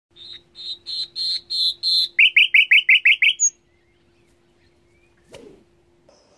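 A songbird singing one phrase: about six clear notes that grow louder, then a fast run of about eight short down-slurred notes and a brief high note to finish. A single sharp click comes about five seconds in, over a faint steady hum.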